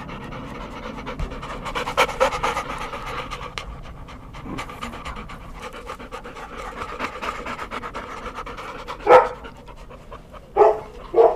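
Labrador retrievers panting quickly and steadily with open mouths. Three short, louder calls break in near the end.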